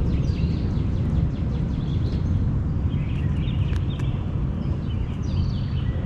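Backyard outdoor ambience: a steady low rumble, with faint bird chirps and calls scattered through it.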